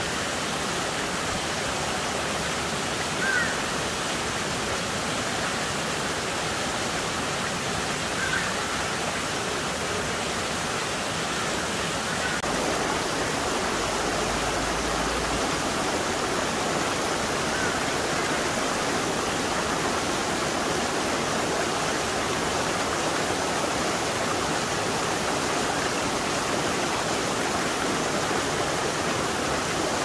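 Mountain stream running over rock ledges and small cascades: a steady rush of water that gets a little louder about twelve seconds in.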